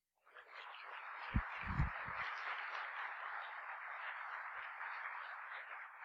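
Audience applauding at the end of a talk, faint and steady, with a few brief low thumps about a second and a half in.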